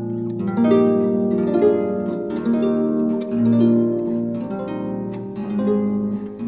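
Slow, gentle instrumental music: a melody of held notes over a sustained low bass note, with a harp-like tone.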